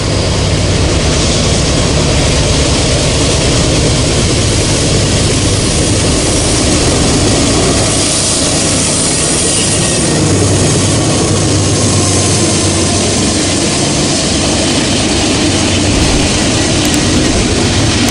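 Norfolk Southern freight train passing close by: the lead GE C40-9W diesel locomotives run past with a steady engine hum, then double-stack container cars roll by, their wheels clattering on the rails near the end.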